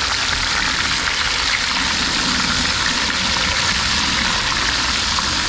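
Speckled trout pieces deep frying in hot oil in a wok: a steady sizzle with fine crackling.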